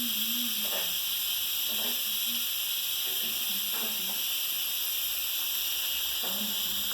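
Dog making low, wavering whines and grumbles in several short spells, pestering to be taken out for a walk; a steady hiss runs underneath.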